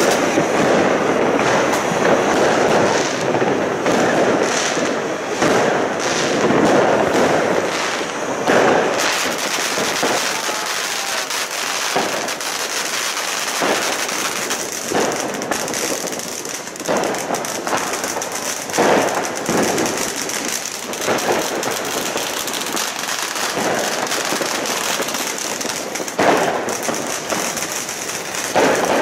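Ground fountain firework spraying sparks with a steady hiss, with many sharp cracks and bangs of fireworks going off throughout.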